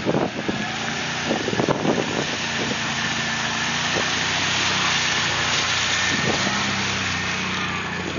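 Can-Am 1000 ATV's V-twin engine running steadily as it drives through a shallow creek, its tyres throwing up splashing water. It grows louder about halfway through as it passes close, then fades a little.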